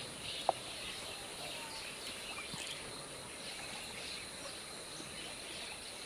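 Outdoor ambience of many small bird chirps over a steady high insect hum, with one short sharp tick about half a second in.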